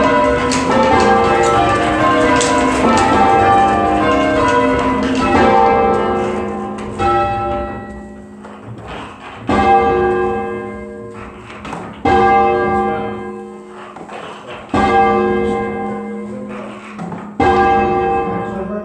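Church tower bells ringing: a dense run of overlapping strokes for about six seconds. Then the ringing thins to single loud strokes about every two and a half seconds, each left ringing, with a steady hum lingering underneath.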